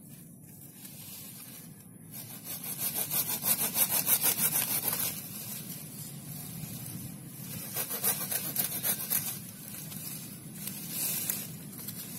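Hand pruning saw cutting through a guava branch in quick back-and-forth strokes. The strokes start lightly, are loudest a few seconds in, then carry on with brief pauses.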